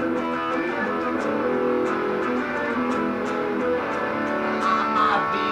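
Music with guitar playing, plucked and strummed.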